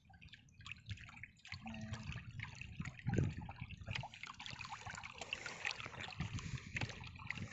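Water lapping and trickling against the side of a wooden boat, with small splashes and a dull knock about three seconds in.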